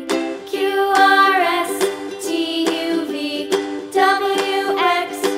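Children's song playing as background music: a voice singing a simple tune over instrumental backing with a steady beat.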